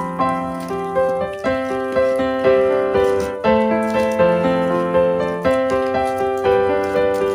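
Background music: a piano-like keyboard melody with a steady beat.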